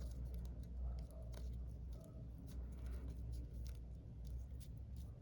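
Soft handling noises of a needle being pushed through gathered ribbon and the thread drawn after it: faint scattered ticks and scratches over a low steady hum.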